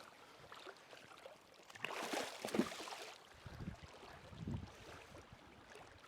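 Water splashing in a few short bursts over the faint, steady sound of a running creek.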